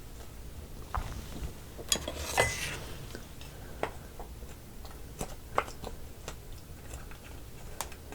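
Close-miked eating of soy sauce marinated raw crab: scattered sharp clicks and cracks of shell and utensils, with a louder crackling crunch about two to three seconds in.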